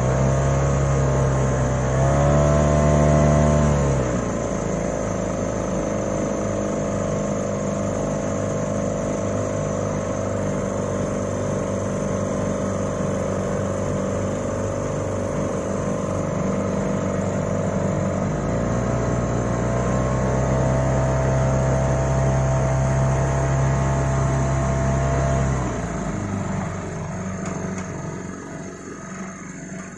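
A vehicle engine running and revving. Its note climbs briefly about 2 s in and drops back, runs lower and steady, then climbs again at about 18 s and holds high for several seconds. It falls back at about 26 s and fades toward the end.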